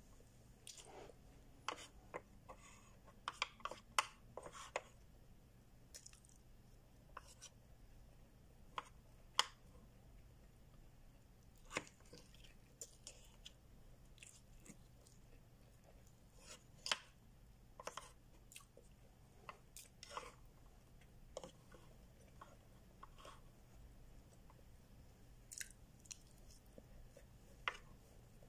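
Close-up eating sounds: quiet chewing with scattered sharp clicks and taps of a plastic fork, coming irregularly, sometimes several close together.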